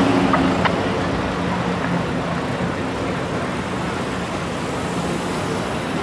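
City street traffic: vehicles, including a van and SUVs, driving past with a steady wash of engine and tyre noise that eases slightly as they move off.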